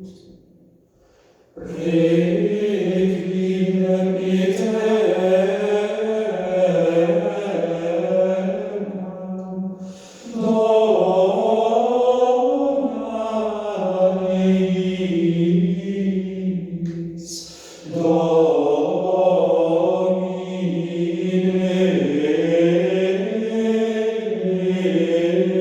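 Choir singing a Requiem in slow, sustained chords, played back through loudspeakers. Three long phrases, each beginning after a brief pause: one near the start, one about ten seconds in, one about eighteen seconds in.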